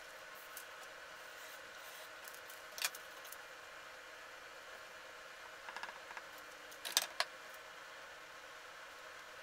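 Paper templates being handled and laid on a plywood workbench: soft paper rustles and a few sharp taps, the loudest about three seconds in and a pair about seven seconds in, over a faint steady hiss.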